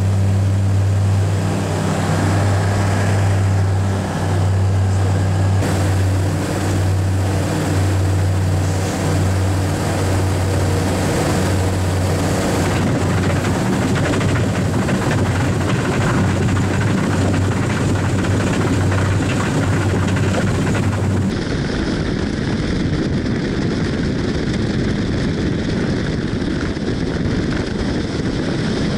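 The Che-29 amphibian's twin Rotax 912 piston engines and propellers give a steady low drone through a landing on water. Partway through, the drone gives way to a rougher rushing noise.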